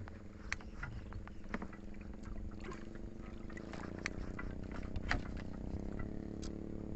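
A boat motor running steadily, with scattered sharp clicks and splashes as a hooked snakehead is pulled in by hand on the fishing line.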